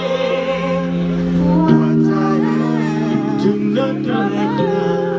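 Live band music through a PA: held chords that change about every second and a half, with a singer's wordless, wavering vocal line over them.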